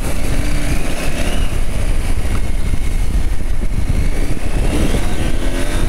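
Husqvarna Norden 901's 889 cc parallel-twin engine running while the bike is ridden, under heavy wind buffeting on the rider's microphone; the engine note rises briefly near the end.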